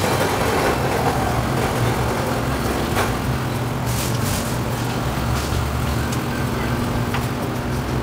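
Steady low hum and rumble of a grocery store's refrigerated display cases and background machinery, with a few faint clicks.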